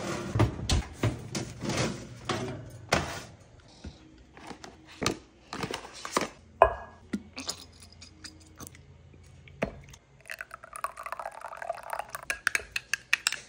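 Kitchen handling sounds: a metal baking tray clattering against the oven rack as it slides in during the first few seconds, then scattered knocks of containers and utensils. Near the end comes a run of quick wet ticks as sauce is poured into a bowl.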